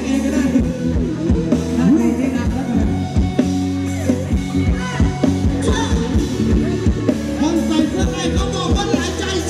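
Live band playing Thai ramwong dance music, a singer over a steady drum beat with electric instruments.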